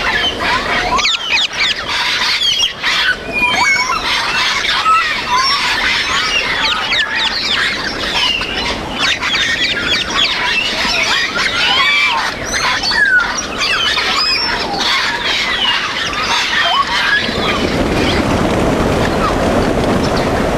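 Many parrots chattering together, with dense overlapping whistles, squeals and squawks. About 17 seconds in, the calls fade and a steady rumbling noise takes over.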